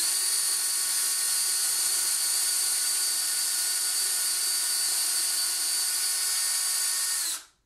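DeWalt cordless drill running steadily, drilling a hole down into a small wooden block, with an even whine; it stops near the end.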